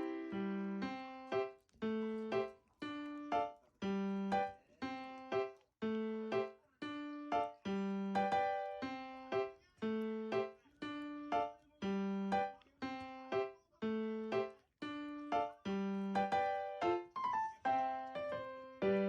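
Background music: a gentle piano-like keyboard melody of struck notes, each fading away, at an even unhurried pace.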